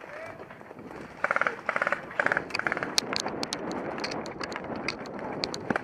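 Airsoft electric guns firing several short full-auto bursts, each a rapid even rattle, starting a little over a second in. These are followed by scattered sharp clicks over a rustling background.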